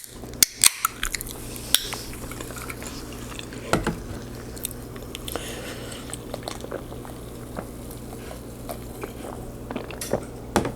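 A person eating close to the microphone, chewing and smacking on a mouthful of lasagna. A few sharp clicks of cutlery on a plate come in the first two seconds and another near four seconds, with small scattered clicks after.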